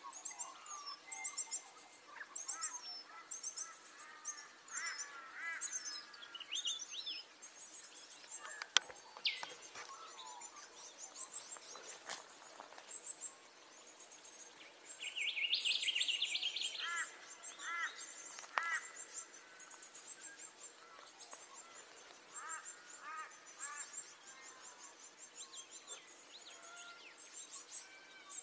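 Several small birds calling in the trees: runs of high thin chirps with lower, ringing two- and three-note calls between them, and a louder buzzy chatter about halfway through. A single sharp tick sounds about a third of the way in.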